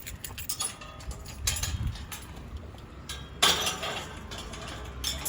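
A bunch of keys jangling and clinking in a hand, with one louder, longer rustling burst about three and a half seconds in.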